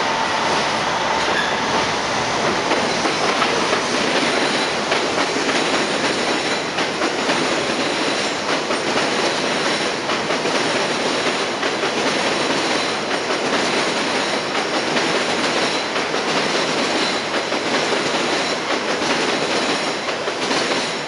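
Subway train running on an elevated steel viaduct: a steady rumble and clatter of wheels on the rails, with a faint high wheel squeal.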